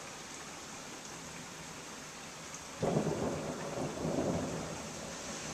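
Steady rain, then about halfway through a peal of thunder breaks in suddenly and rumbles for a couple of seconds before easing back under the rain.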